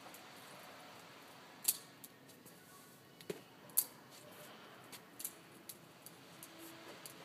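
Benchmade 51 balisong (butterfly knife) being flipped: its handles click and clack as they swing open and shut, in irregular sharp clicks with two louder clacks about a second and a half and about four seconds in.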